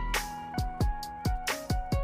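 Background music: sustained melodic notes over a drum beat with about four kick-drum hits a second.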